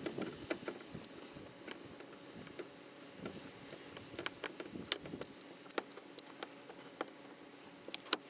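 Faint, irregular small clicks and taps of a Torx screwdriver driving the T30 screw behind the interior door handle.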